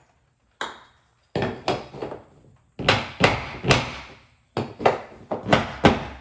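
Hammer blows driving nails into wooden trim: about a dozen sharp knocks in quick groups of three or four, each with a short ring.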